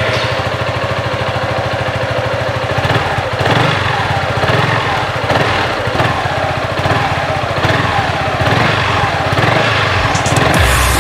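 Yamaha XMAX 300 scooter's single-cylinder engine running steadily at idle through its exhaust, with a fast, even low pulse.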